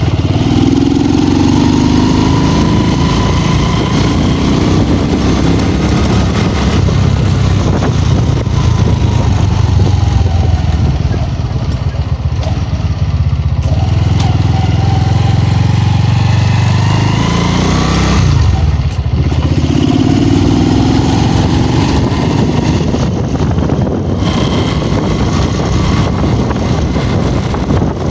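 Motorcycle engine running while riding, heard from the rider's seat: its pitch climbs as the throttle opens and sinks as it is eased, with a short drop about two-thirds through before it climbs again.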